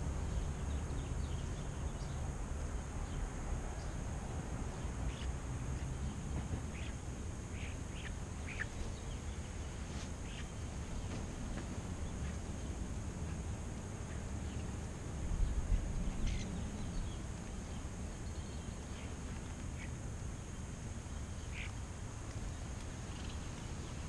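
European starlings calling with short, scattered chirps and clicks, one of them falling in pitch, over a steady low rumble. A low thump comes about fifteen seconds in.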